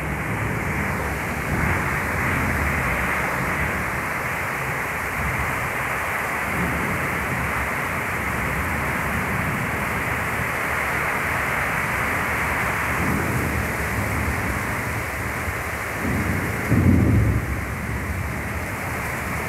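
Heavy rain pouring steadily, with low rumbling of thunder underneath and a brief louder rumble near the end.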